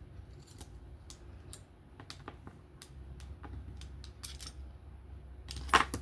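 Light, irregular clicks and ticks of small metal parts being handled as a Kizer T1 folding knife is taken apart, with a louder clack near the end.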